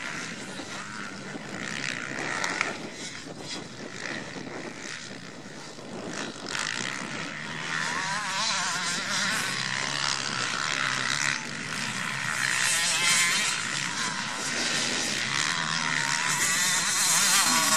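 Motocross bikes' engines revving on the track, the pitch rising and falling as the riders throttle up and shift. The sound grows louder over the second half as a bike comes close.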